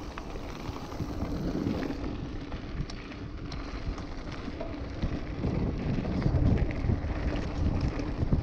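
Wind buffeting the camera microphone over the rumble of mountain-bike tyres on a loose gravel track, with scattered small clicks of stones. It gets louder about two-thirds of the way in.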